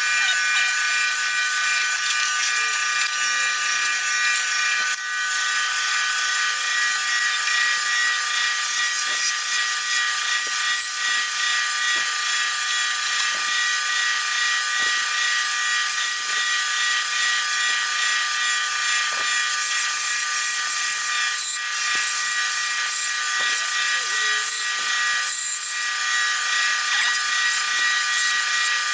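Wood lathe spinning a post oak pen blank while a skew chisel cuts it, played at eight times speed so the motor and cutting come through as a steady high whine.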